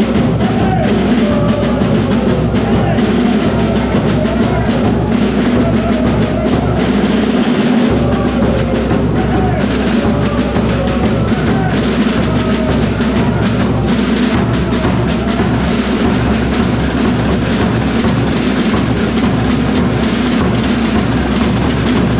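A band playing live and loud, with a large bass drum and other drums beating under a sustained melody.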